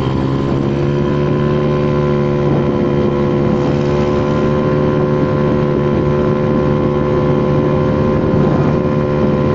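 A Honda Vario 110 carburettor scooter's single-cylinder engine, bored out with a 55 mm piston to about 130 cc, running at steady high revs under way. Its pitch rises slightly over the first few seconds and then holds steady.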